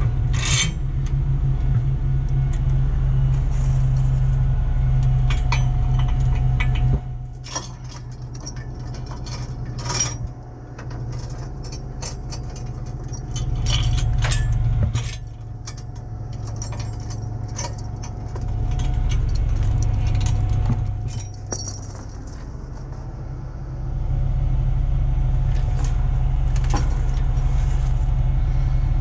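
Steel tow chains clinking and rattling against the steel of a school bus's front bar and a tow truck's underlift as they are hooked up, over a truck engine idling steadily. The engine sound drops back for a long stretch in the middle, about seven seconds in, and comes back up near the end.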